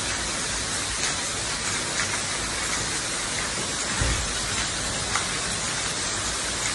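Heavy rain pouring down in a steady hiss, with a few sharp ticks and a brief low thump about four seconds in.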